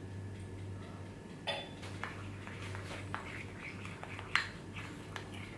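Metal spoon stirring icing-sugar glaze in a small ceramic ramekin, clinking and scraping against the bowl now and then, with the sharpest clink about four seconds in.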